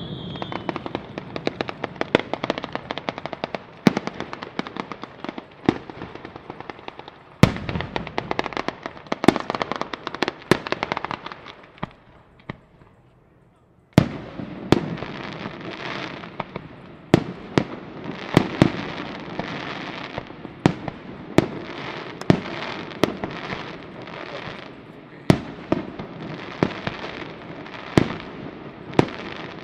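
A daytime batteria sanseverese, a firecracker barrage fired in rapid sequence: dense crackling punctuated by sharp, louder bangs. The crackle dies away almost to nothing about twelve seconds in, then restarts with a sharp bang and carries on with loud reports about once a second.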